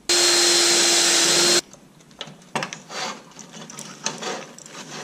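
Cordless drill running at one steady pitch for about a second and a half, then stopping abruptly, as it drills through a sheet-metal brake dust shield for a rivet patch. After it come a series of clicks and metallic handling sounds as a hand pop-rivet tool is worked on the shield.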